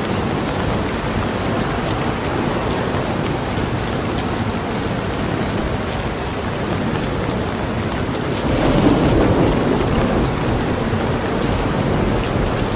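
Steady heavy rain falling, with a low rumble of thunder swelling and fading about two-thirds of the way through.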